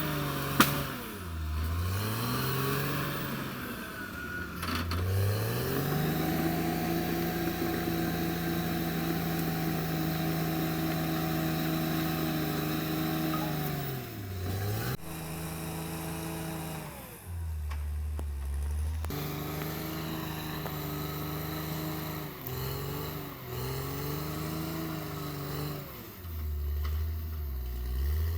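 Diesel engine of a Caterpillar D6R XL bulldozer working, its engine speed sagging and climbing back several times. Around two-thirds through, and again near the end, it drops to a low, steady speed for a couple of seconds.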